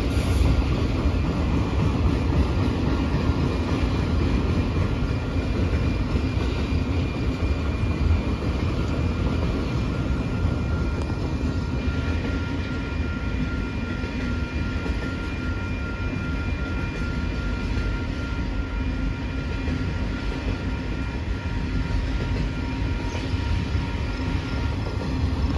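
Freight train of autorack cars rolling past: a steady rumble of wheels on rail, with faint, steady high ringing tones heard through the middle stretch.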